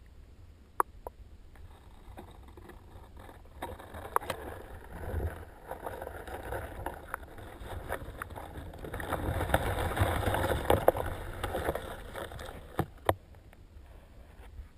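Muffled underwater handling noise from a GoPro in its waterproof housing being moved through pond water on a pole. A rushing swish builds through the middle and fades again, with scattered sharp knocks and clicks from the housing and pole, the clearest near the start and near the end.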